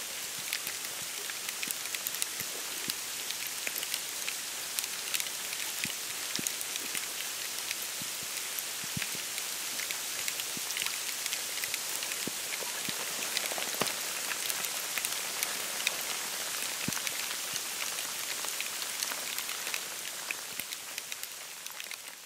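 Snow falling on dry reeds, brush and a wooden boardwalk in a wetland: a dense, even patter of tiny ticks with scattered louder single drops, fading out near the end.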